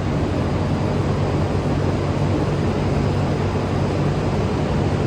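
Potato store ventilation fans running at full speed to cool the stored crop: a steady, loud rushing with a constant low hum.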